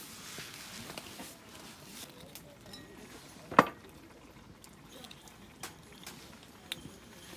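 Scattered light clicks and knocks of camp cookware and utensils, with one sharp knock about three and a half seconds in.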